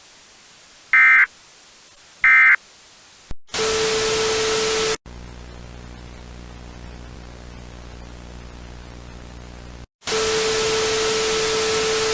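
EAS end-of-message data bursts: the last two of three short digital squawks about a second apart. Then loud static with a steady tone in it, a lower buzzing hum under static for about five seconds, and the loud static with its tone again.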